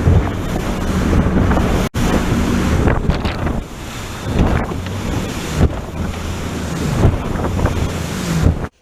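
Heavy wind buffeting the microphone and water rushing past over a steady low hum from a bass boat running under outboard power. The sound breaks off for an instant about two seconds in and stops abruptly near the end.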